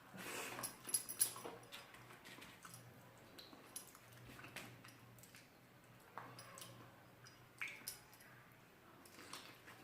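Close-up eating sounds of rice and curry: soft wet squishing with irregular small clicks and smacks, a cluster of them about a second in.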